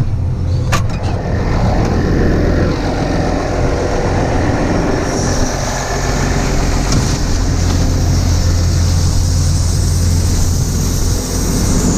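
A farm machine's diesel engine running steadily at working speed, a loud low drone with mechanical clatter above it. There is one sharp click about a second in.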